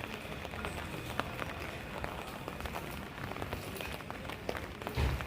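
Steady rain with scattered drops tapping close by, and footsteps on a wet street. A single low thump comes near the end.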